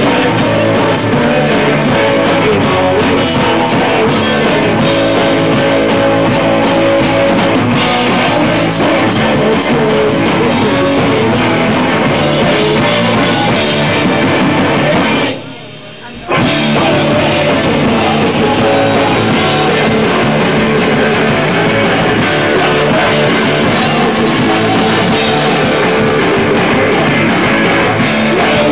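Live punk rock band playing loud: electric guitar, bass guitar and drums, with a male lead singer and backing vocals. The sound cuts out sharply for under a second about halfway through, then the full band is back.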